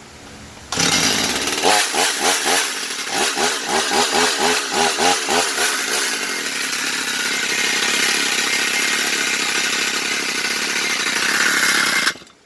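Stihl MS 250 two-stroke chainsaw, muffler refitted, revved hard in quick rising-and-falling blips, about two a second, then held at high revs. The sound cuts off suddenly near the end.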